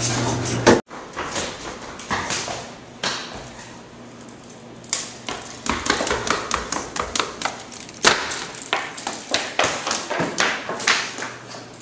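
Quick running footsteps thudding down stairs and across a hard floor, an irregular run of knocks and taps over a low steady hum.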